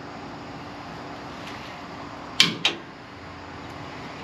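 Two sharp metal clacks about a third of a second apart, roughly two and a half seconds in: a 100-pound magnet snapping onto the steel frame rail and sheet-steel panel. A steady low hum runs underneath.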